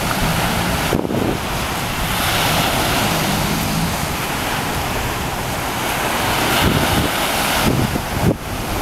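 Surf washing up on the beach, with wind buffeting the microphone.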